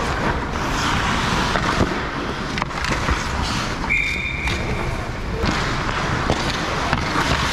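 Ice hockey play around the net: skates scraping on the ice and sticks and puck knocking, with a referee's whistle blown once, briefly, about four seconds in, stopping play.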